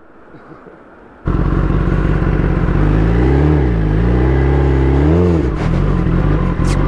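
After a quiet first second, a Kawasaki ZX-10R's inline-four engine comes in suddenly, running on the move with wind rush over it. The engine pitch dips and rises twice in the middle.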